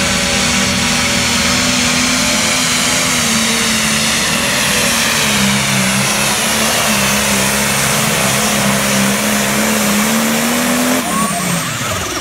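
Turbocharged diesel engine of a John Deere light pro stock pulling tractor running flat out under load on the sled, a steady high engine note with a turbo whine over it. About eleven seconds in it lets off: the sound drops and the pitch falls away.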